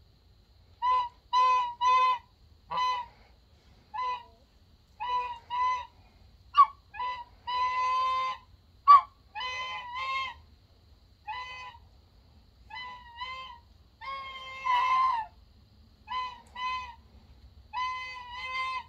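Domestic geese honking over and over: short honks, often two or three in quick succession, with a few longer drawn-out honks.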